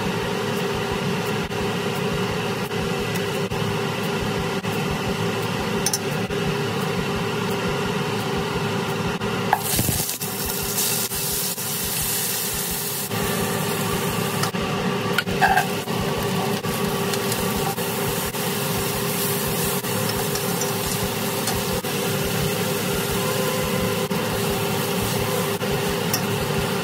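Food sizzling in hot oil in a pot as it is stir-fried, steady throughout, over a constant low hum.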